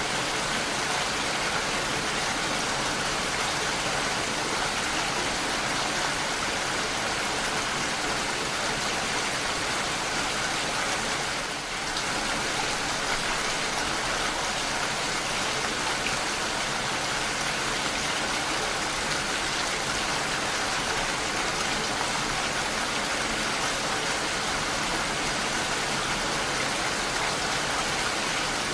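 Steady, even rain falling, a dense hiss of drops with no single drop standing out; it dips slightly for a moment about twelve seconds in.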